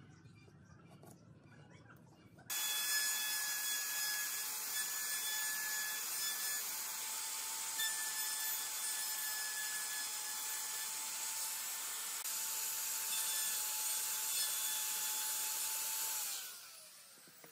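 Dong Cheng DMR02-12 electric plunge router running at full speed and cutting notches into a softwood frame: a steady high whine over a hissing cut. It starts abruptly about two and a half seconds in and near the end is switched off, its whine falling as the motor spins down.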